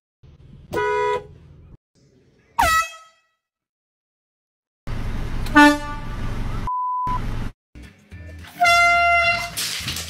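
Several short air horn blasts a few seconds apart, each starting suddenly, one of them falling in pitch. A short steady beep sounds about seven seconds in.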